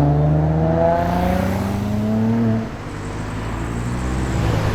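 Hyundai i30N's turbocharged four-cylinder engine accelerating, its note climbing steadily, then the throttle closes about two and a half seconds in and the sound drops suddenly to a quieter, rougher exhaust noise.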